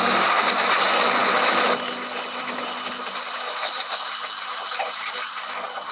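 Countertop blender motor running, blending a thick peanut sauce of roasted chilli, garlic and hot water. Its sound eases a little after about two seconds.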